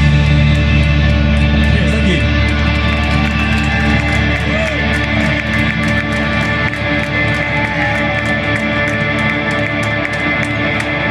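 Punk rock music with distorted electric guitar holding a long, steady ringing chord, a few sliding pitches, and a fast even ticking on top.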